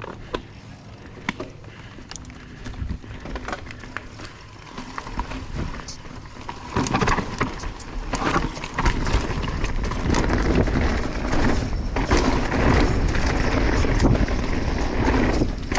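Mountain bike riding a rocky trail: tyres rolling over rock with scattered clicks and rattles. About seven seconds in it turns into a much louder, continuous rushing rumble as the bike speeds up.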